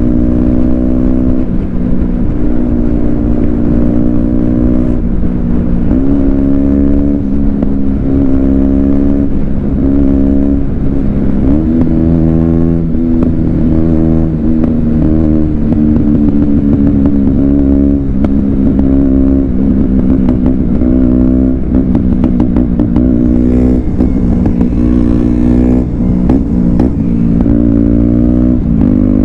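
KTM Duke 125's single-cylinder four-stroke engine on the move, its pitch climbing with the revs and dropping back again several times, as when accelerating through the gears.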